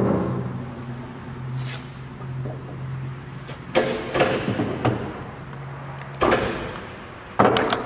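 Speed-change levers on a Stanko engine lathe's headstock being shifted by hand. There is a sharp clunk at the start, a burst of clattering metal clunks about four seconds in and another clunk near the end, over a steady low hum from the running lathe that stops about six seconds in.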